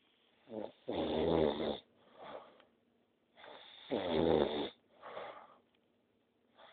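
A person snoring loudly: two long snores about three seconds apart, each followed by a shorter, quieter breath, with the next snore beginning at the very end.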